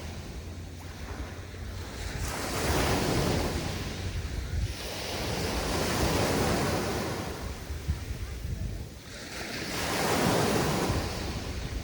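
Mediterranean waves breaking and washing up the beach, three swells of surf rising and falling in turn, with a steady low rumble of wind on the microphone.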